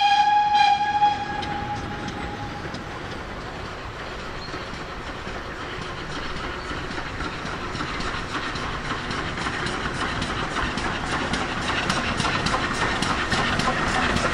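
A steam whistle on a GWR small prairie 2-6-2 tank engine sounds one steady note that stops about a second in. The locomotive and its goods train then approach, with a fast, regular beat of clicks and chuffs growing louder.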